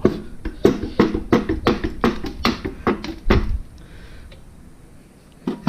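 Rapid metal knocks and clanks as the intake manifold of a Jeep 4.0 engine is rocked and worked loose from its dowel pins, ending in a heavier thud a little past three seconds, then quieter with one last knock near the end.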